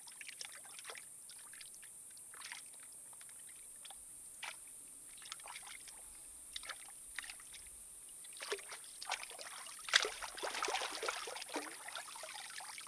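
Water splashing and sloshing in irregular handfuls of small clicks and splashes, busier in the second half with one sharp louder splash or knock about ten seconds in, over a steady high hiss.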